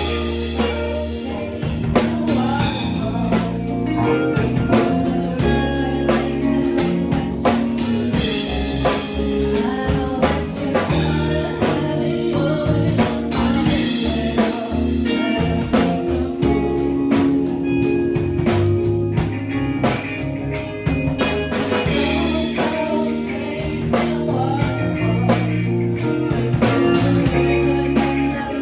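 A song with singing over guitar, bass and a steady drum beat.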